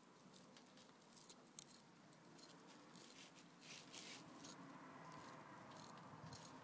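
Faint, irregular scratching of a knife blade cutting down along the back of a perch, densest about three to four seconds in.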